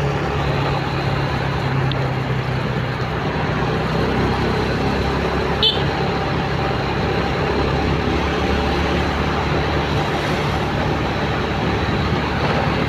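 An old motorcycle's engine running steadily at cruising speed, with road and traffic noise around it. A brief high chirp sounds a little before halfway.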